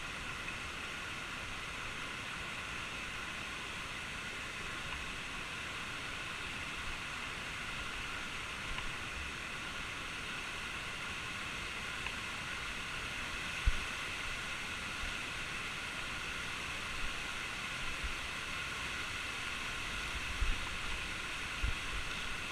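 Steady rush of falling water from the Bocawina waterfall, with a few brief low thumps in the second half.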